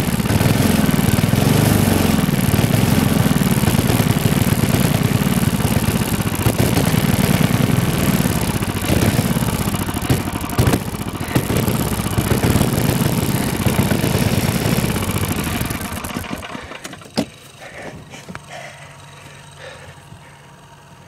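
Go-kart's Tecumseh HM100 10 hp single-cylinder engine with a homemade pipe muffler running loud, its pitch rising and falling repeatedly as it revs. About sixteen seconds in the engine sound dies away, followed by a sharp click.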